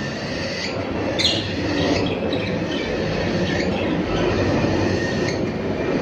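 Caged cockatiels and budgerigars chattering: a continuous raspy din with sharper high chirps breaking through every second or so.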